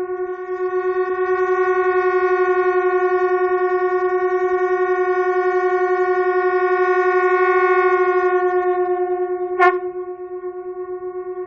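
Two conch shells blown at once by one player, a single steady held tone whose loudness pulses rapidly from the beating between the two shells' close pitches. Near the end a brief sharp accent, after which the tone carries on a little quieter.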